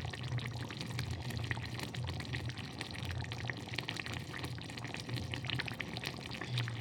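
Thick chicken gravy bubbling in the pan, with small irregular pops and crackles over a steady low hum.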